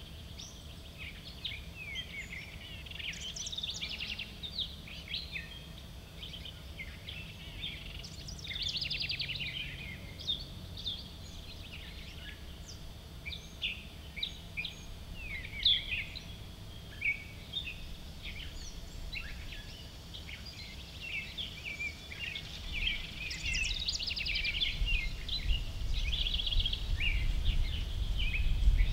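Several songbirds singing, with overlapping chirps and a few rapid trills, over a low outdoor rumble that grows louder in the last few seconds.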